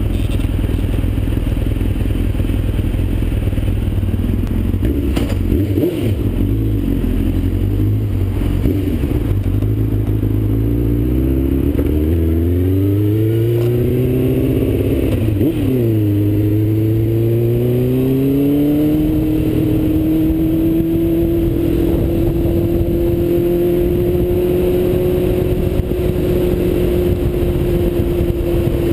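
Suzuki GSX-R750's inline-four engine, heard from the rider's helmet: it runs low at first, then pulls away with the revs rising and dropping through several gear changes, and holds a steady note at cruising speed for the last ten seconds or so.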